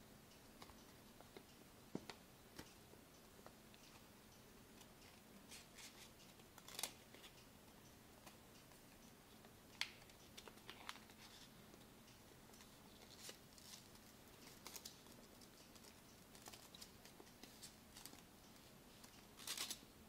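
A sheet of paper being folded and creased by hand: scattered soft crinkles and crisp clicks, with a few louder rustles, over a faint steady low hum.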